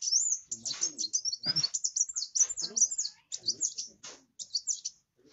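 A kowul (kolibri wulung, a sunbird) singing in full song: a fast, unbroken twitter of short, high-pitched sweeping notes, briefly thinning out near the end.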